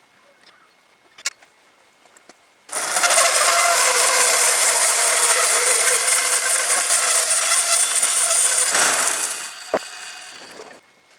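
Homemade electric horizontal bandsaw mill running, with a dense rattling machine noise that starts abruptly, holds steady for about seven seconds, then winds down.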